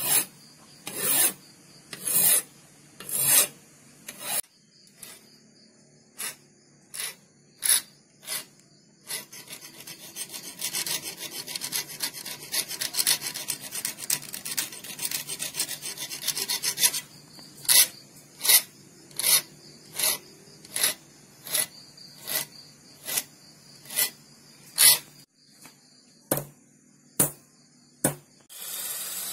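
Flat hand file rasping across a thin knife blade clamped in a bench vise, in separate strokes about one a second, with a run of quicker, short strokes in the middle. A few light taps near the end.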